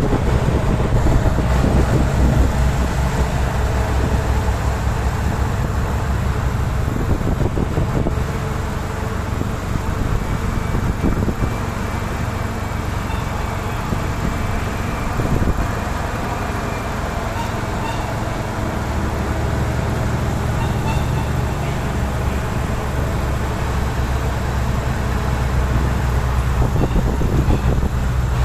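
Heavy diesel trucks running at steady road speed: a continuous low engine drone with tyre and road noise.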